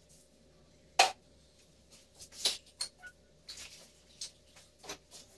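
Metal hand tools clinking and knocking on a backhoe loader's gearbox being taken apart: one sharp knock about a second in, then a scatter of lighter clicks and taps. A faint steady hum runs underneath.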